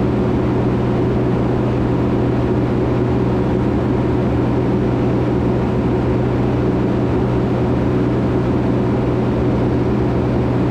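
Van's RV-10 light aircraft's piston engine and propeller droning steadily in cruise flight, heard inside the cabin as a constant low hum that does not change in pitch or level.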